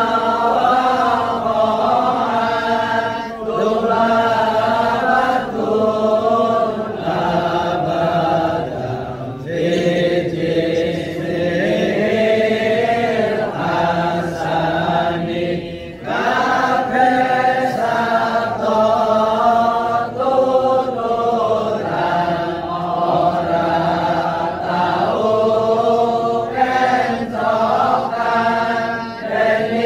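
Voices chanting a slow, melodic chant in long phrases, breaking off briefly about sixteen seconds in.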